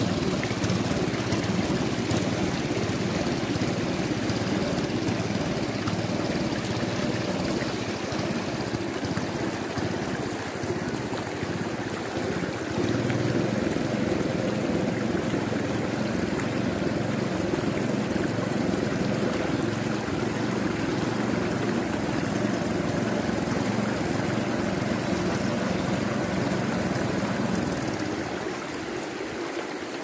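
Rushing water of shallow river rapids around boulders, with the steady drone of a small boat engine underneath. The low engine sound drops away near the end, leaving mostly the water.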